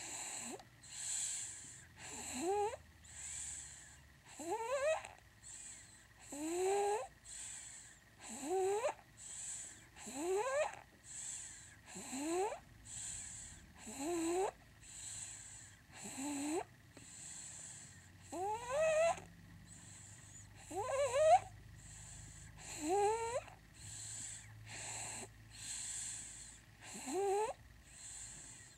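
Baby snoring in sleep: a squeaky snore that rises in pitch, alternating with a breathy hiss, about one breath every two seconds.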